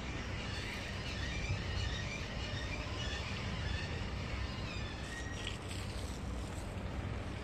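Steady low street ambience beside a road: a continuous, even rumble picked up on a hand-held phone's microphone while walking.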